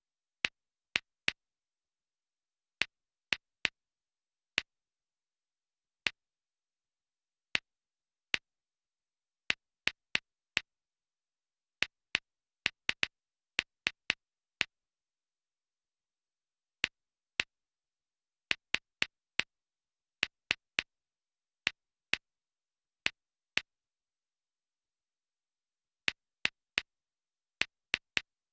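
Typing: short sharp keystroke clicks, one per letter, at an uneven pace with dead silence between them.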